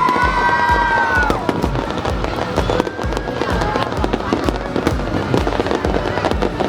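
Fireworks going off, with many sharp pops and crackles, over music with a steady thumping beat.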